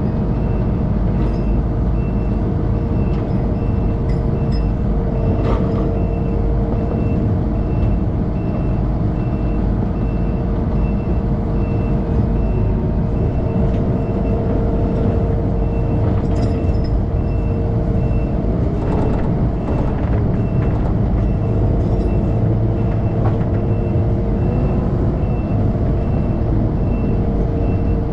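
Takeuchi TL12v2 compact track loader's diesel engine working hard under load as it reverses, dragging a stuck pickup out of mud, with its backup alarm beeping steadily and repeatedly.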